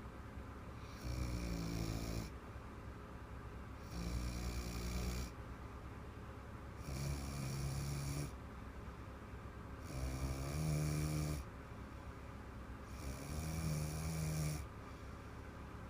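A woman snoring in deep sleep: five loud snores, each a little over a second long and about three seconds apart, with quieter breathing between.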